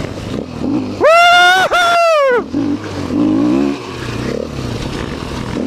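A person yells two long, high-pitched whoops back to back about a second in, over a dirt bike engine running underneath.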